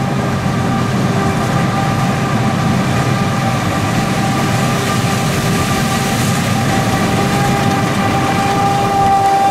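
Heavy farm machinery running steadily at work: a deep engine rumble with a high steady whine on top, growing a little louder near the end.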